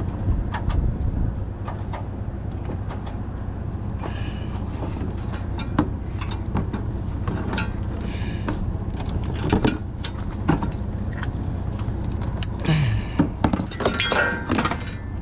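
Semi-truck diesel engine idling steadily, with scattered metallic clicks and clanks over it.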